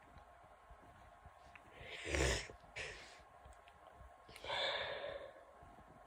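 Nasal breathing of a person with a head cold: a sharp nasal burst about two seconds in, a quick sniff just after, and a longer breathy exhale near the end.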